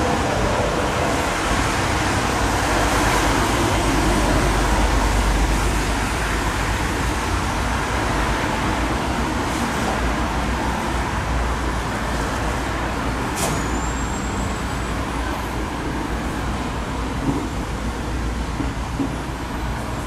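Steady city-street traffic, cars and trams passing on a busy road, with a deep rumble. About two-thirds of the way through there is a brief sharp click followed by a short high squeal.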